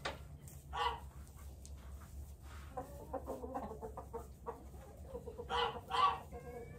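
Chickens clucking in a farmyard pen, with a few short, louder squawking calls: one about a second in and two close together near the end.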